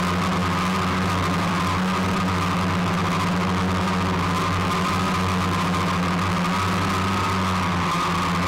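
A steady machine drone: a low hum with a thin, slightly wavering whine above it, unchanging in level.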